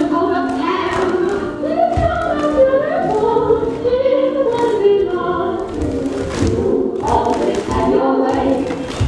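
A group of voices singing together in a choir-like, mostly unaccompanied style, with a few soft thuds among it.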